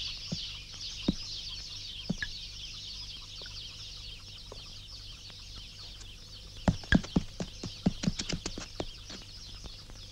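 A steady, high chirring ambience with scattered sharp clicks and knocks over it, which come thick and loud for a couple of seconds in the second half.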